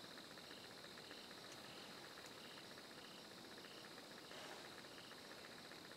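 Faint evening chorus of crickets and other insects: a steady high-pitched drone, a fast pulsing trill below it, and a short chirp repeated about every two-thirds of a second.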